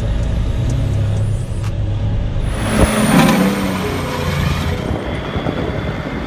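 Diesel semi-truck engine running with a steady low drone. About two and a half seconds in, a louder rushing surge as a big rig accelerates hard, then it eases off.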